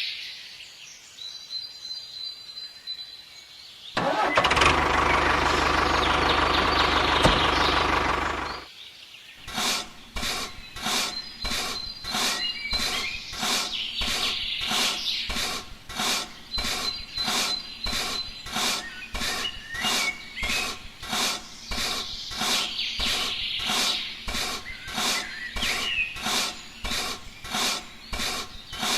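A loud machine runs for about four and a half seconds. Then comes a steady rhythmic rasping, about one and a half strokes a second, like hand filing or sawing, with birds chirping in the background.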